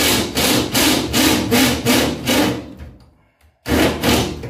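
Hand file rasping back and forth in a drilled hole in a VW pickup's painted sheet-steel bed side, enlarging it: rapid strokes, about four a second. It stops briefly a little after three seconds in, then starts again.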